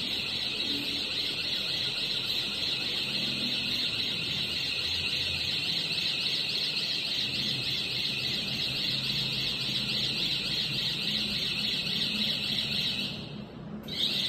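Hydraulic vehicle lift raising its platform: a steady high buzz over a low motor hum, as a warning buzzer or the pump runs. It stops shortly before the end, when the lift reaches the top, and a brief burst of the same sound follows.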